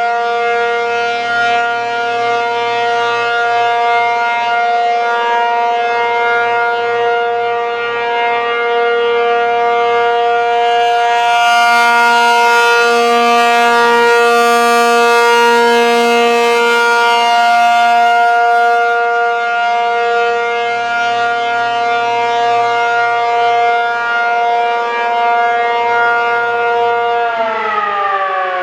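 ASC T-135AC outdoor warning siren sounding the steady Full Alert tone, loud and swelling and fading as it sweeps. About a second before the end its pitch starts to fall as the siren winds down.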